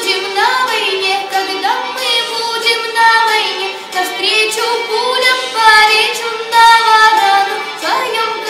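A young woman singing a Russian folk song solo and unaccompanied, in long held notes that glide between pitches.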